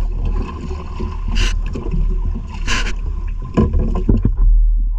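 Sea water against the hull of a small outrigger boat over a steady low rumble. There are two short hissing bursts, about a second and a half and nearly three seconds in, and a few knocks near the end.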